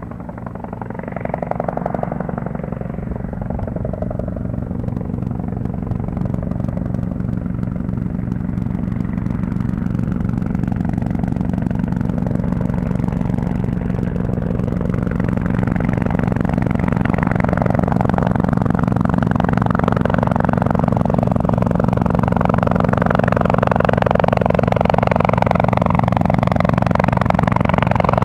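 Firefighting helicopter in flight, its rotor beating steadily over the engine's drone and growing gradually louder as it approaches.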